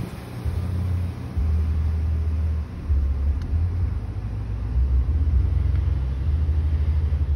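Low, uneven rumble of a car in motion, heard from inside it: road noise and wind buffeting the phone's microphone. No siren sounds.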